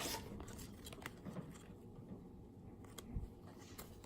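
Baseball cards being handled and flipped through: faint scattered clicks and rustles, with a single louder soft knock about three seconds in.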